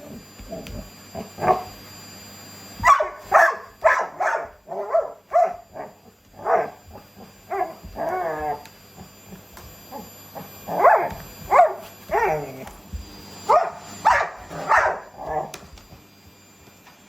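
Dog barking at a vacuum cleaner: repeated excited barks, coming in runs of several with short pauses between runs.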